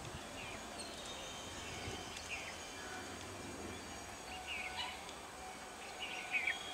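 Birds chirping in short, downward-sliding calls every second or two, the loudest pair about six seconds in, over a faint, steady low hum of outdoor background.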